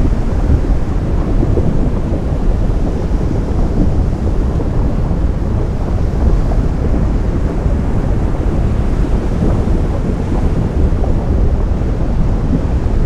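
Ocean surf meeting lava: a steady, deep rumbling roar with a grainy crackle, no single wave breaks or bangs standing out.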